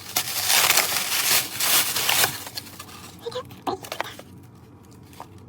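Plastic packaging rustling and crinkling for about two seconds as a small bag of safety eyes is handled and opened, followed by a few light clicks and quieter handling.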